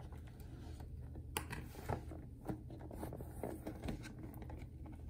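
Hands handling and turning a cardboard Nendoroid figure box on a table: scattered light taps, rubs and scrapes of fingers and box, the clearest about one and a half and two seconds in, over a low steady hum.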